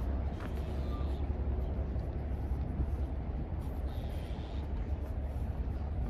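Outdoor city ambience: a steady low rumble under a constant noisy haze.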